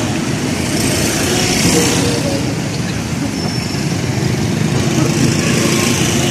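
Busy street traffic: a steady wash of passing vehicles and engines, swelling twice as vehicles go by, with faint voices mixed in.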